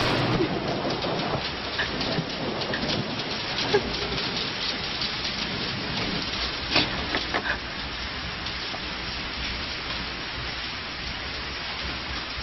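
Steady heavy rain falling, with a few sharper cracks standing out about four and seven seconds in.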